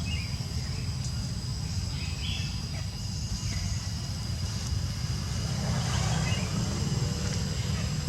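Outdoor ambience: a steady low rumble with a thin, steady high-pitched drone and a few faint short squeaks.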